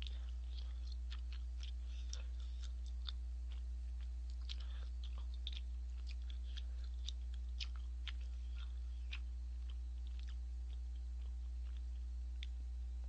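A person chewing tteokbokki rice cakes close to the microphone: a run of small wet mouth clicks that thins out near the end, over a steady low electrical hum.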